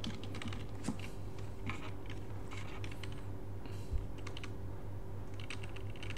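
Computer keyboard being typed on: irregular, scattered key clicks over a steady low hum, with a slightly louder knock about four seconds in.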